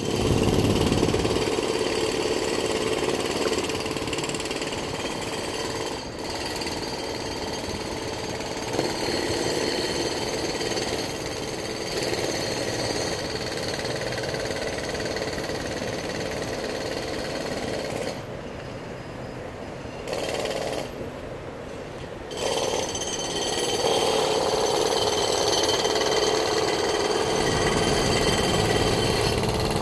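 Construction jackhammer hammering rapidly and without letup, easing off briefly twice about two-thirds of the way through.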